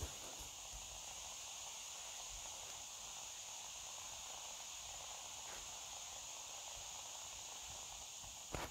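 Chopped mushrooms, peppers and onion sizzling gently in oil in a frying pan: a steady, faint high hiss. A single click right at the start.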